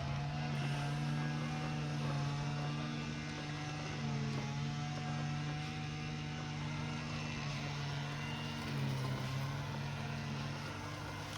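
RockMow S108 mower running with its general cutting disc, a steady motor hum with several tones that dip slightly in pitch about four seconds in and again near nine seconds. This hum is the noise the owner complains of when the general disc and PreciEdge are in use.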